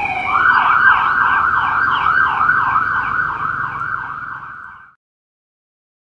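Police car siren passing: a falling wail changes just after the start into a fast yelp of about three cycles a second. It grows fainter as it moves away and cuts off suddenly near the end.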